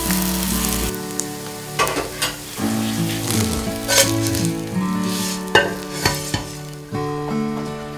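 Batter-coated onion strips frying in hot oil in a stainless steel pan, a steady sizzle broken by a few sharp clicks and taps.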